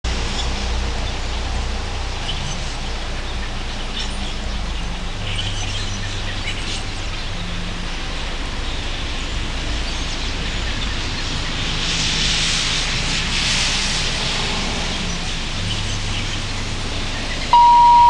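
Quiet outdoor background: faint bird chirps over a low steady hum. Near the end a loud steady high tone starts abruptly.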